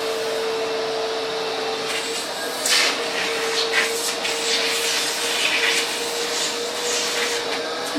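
Vacuum cleaner running steadily: an even hiss of rushing air with a constant motor tone. A few brief scratchy sounds come in from about three seconds in.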